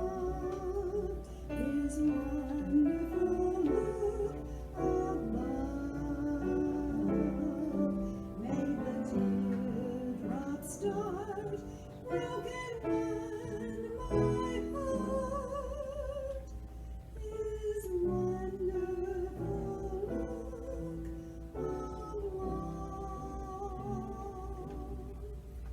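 Music: a sung melody with vibrato over instrumental accompaniment.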